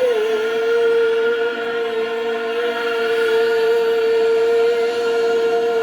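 Singers holding the final "Amen" of a Korean worship song as one long, steady sung note, reached by a short upward slide.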